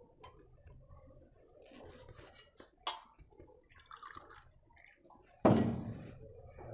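Water poured from a steel jug in short spells, splashing into a small glass beaker to rinse out the last traces of dissolved oxalic acid, with a light click partway through. About five and a half seconds in comes a sharp knock, the loudest sound, as the jug is set down on the table.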